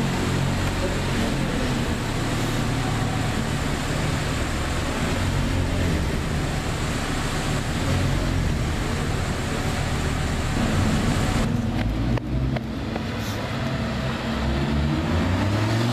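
Audi R8 GT Spyder's V10 engine running at low revs as the car rolls slowly through a parking garage, with the revs rising near the end.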